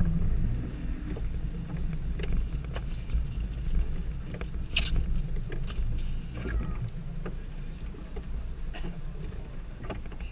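A boat's motor running steadily at low speed, with scattered sharp clicks and knocks, the loudest about five seconds in.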